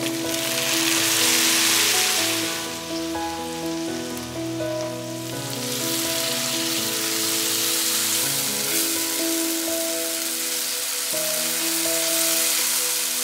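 Chopped tomatoes frying in hot oil in a wok, a loud sizzle that swells over the first two seconds, eases off, and builds again from about six seconds in. Soft background music with held notes plays underneath.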